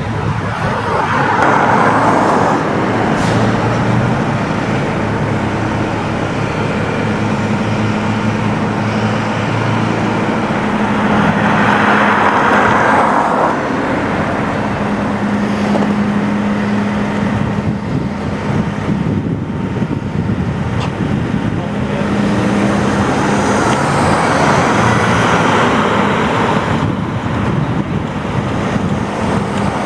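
Road traffic: vehicles passing at intervals, each swelling and fading over a couple of seconds, over a steady low engine hum.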